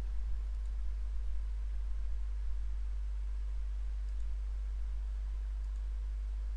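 Steady low hum with three faint computer mouse clicks: one about half a second in, one about four seconds in and one near the end.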